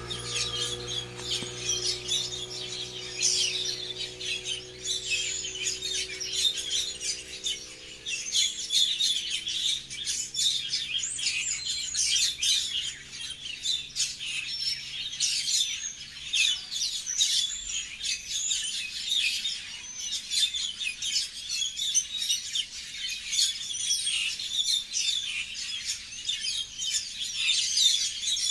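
Many small songbirds chirping and tweeting continuously in a dense chorus of quick, high-pitched calls. Low held musical tones underneath fade out over the first several seconds.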